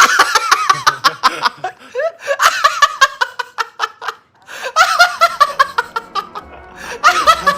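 High-pitched laughter in rapid, loud bursts, coming in several runs with short breaks; music starts faintly near the end.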